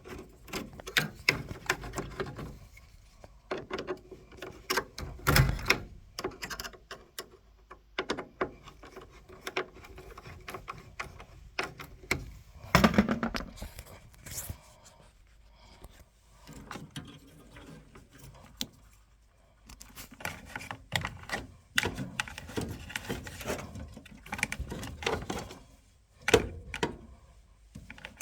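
Irregular clicks, knocks and clattering of things being handled, with a couple of louder thumps along the way.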